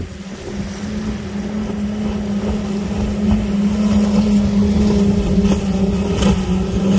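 Center-console powerboat with five outboard motors running at speed as it passes close by. A steady engine drone grows louder over the first few seconds, then holds.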